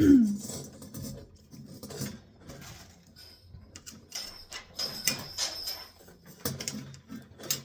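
Scattered light clicks and clinks of small metal oven parts and screws being handled during reassembly, opening with a short falling whine.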